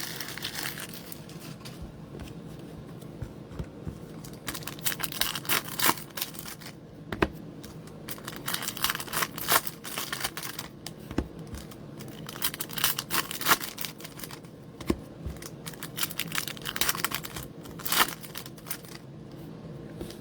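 Foil trading-card pack wrappers being torn open and crinkled, in irregular crackly bursts with sharp clicks and short pauses between, over a faint steady hum.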